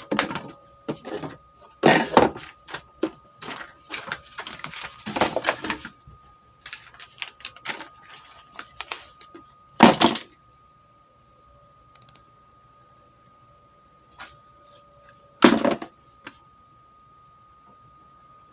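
Handling noise: a run of clicks, knocks and rattles, with a sharp knock about ten seconds in and another near the end. A faint steady high tone runs underneath.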